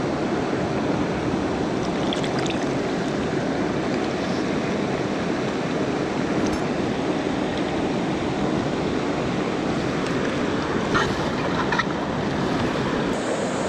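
River water rushing steadily, a close, even roar of flowing current, with a few light clicks.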